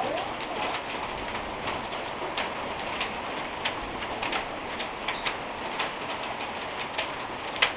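Heavy rain pouring steadily, with scattered sharp drips and ticks of drops striking hard surfaces. A louder knock comes near the end.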